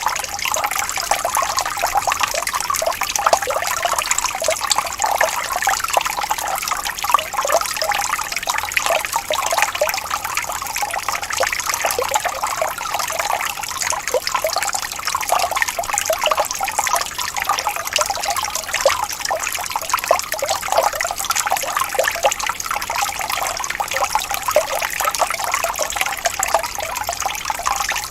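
Gently rippling stream of running water: a steady babble of many small splashes and trickles, with little deep rumble.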